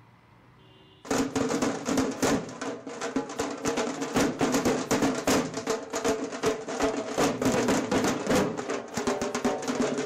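After about a second of low background hum, music with fast, dense drumming starts and keeps going, with a steady held tone underneath the drums.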